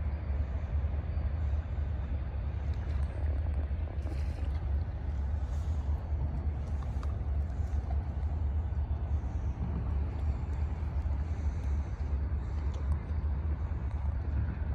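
Wind buffeting the microphone, a steady low rumble that flutters in level, over a constant outdoor hiss.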